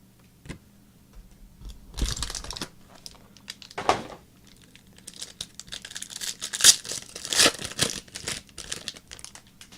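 Plastic wrapper of a trading-card pack crinkling and being torn open, in several short irregular bursts.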